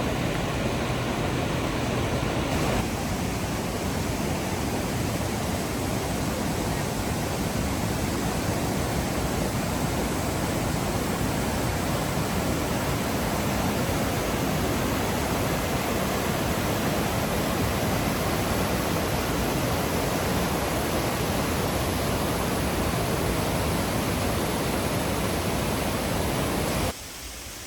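Steady, dense rush of water from the Caney Fork River's falls in the gorge, constant in level and dropping off sharply about a second before the end.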